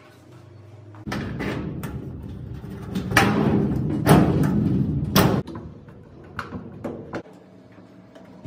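Knocks and clatter of cabinet parts and door hardware being handled and fitted: a loud, busy run of knocks for about four seconds, then a few separate knocks.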